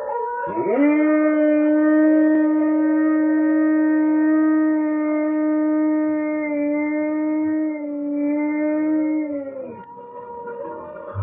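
A dog howling: one long held note that rises into pitch about half a second in and drops away about a second before the end.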